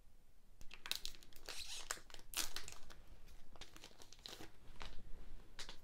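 A trading-card booster pack wrapper being torn open and crinkled by hand, in irregular quiet crackles.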